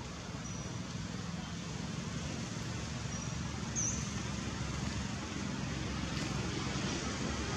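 Steady outdoor background noise, a low rumble under an even hiss, with a few brief high chirps, the clearest a short rising chirp about four seconds in.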